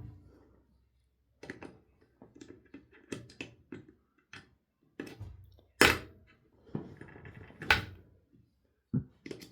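Scattered clicks and knocks of a disassembled hard drive's parts being handled, with two louder, sharper knocks in the second half.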